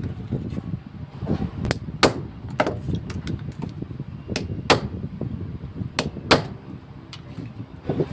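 Sharp clicks and knocks from hand work on a car's ignition lock cylinder, about seven of them at irregular intervals, several coming in quick pairs, over a steady low rumble.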